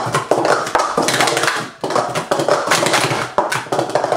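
Plastic sport-stacking cups clacking rapidly as they are stacked up and down on a stack mat, a quick run of light knocks. There is a short pause about two seconds in, then the clatter starts again.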